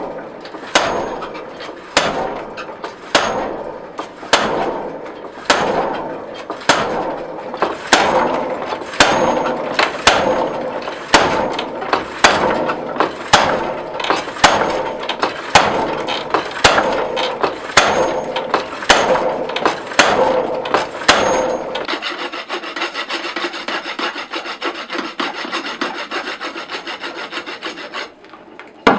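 Hammer blows forging steel, a steady rhythm of about one strike a second, each with a short ring. Then the blows stop and a continuous rasping scrape runs for about six seconds, with one sharp knock at the end.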